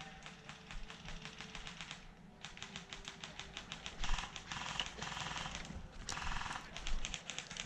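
Airsoft guns firing on full auto in several long bursts of rapid, evenly spaced clicks, a fast ticking rattle that stops and starts.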